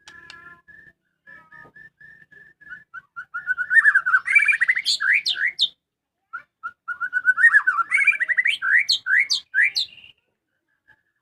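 White-rumped shama singing: a run of short, even whistled notes builds into two fast, loud phrases of rising whistles and trills, with a short pause between them.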